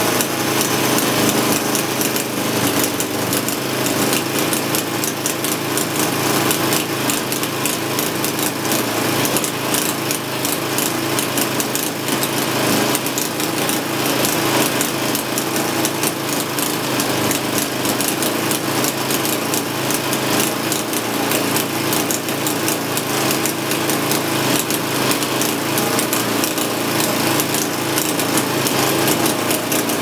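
A motorcycle engine running steadily, driving the blade of a homemade band sawmill through a log.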